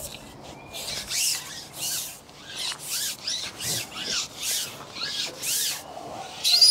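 Carbon match-fishing pole being shipped out hand over hand, its sections rubbing as they slide forward in short strokes about two a second, with a louder scrape near the end.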